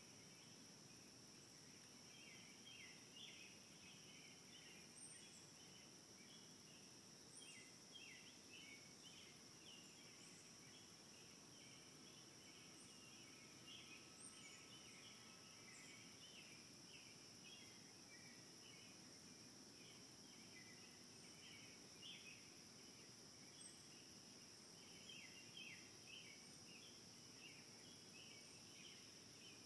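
Faint outdoor ambience: a steady high-pitched insect drone, with a continual chatter of short chirps lower down.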